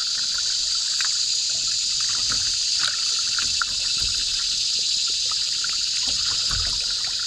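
Water trickling and lapping around a cedar strip canoe being paddled slowly with a double-blade paddle, with drips and small splashes from the blades and a couple of low thumps. Behind it runs a steady high-pitched insect buzz.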